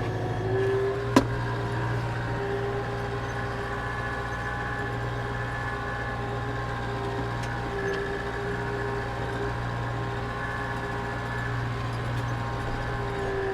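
Farm tractor engine running steadily while pulling a grass slitter and rake, with one sharp knock about a second in.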